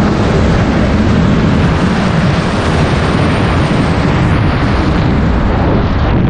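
Loud, steady rush of airstream buffeting a camera microphone during wingsuit flight.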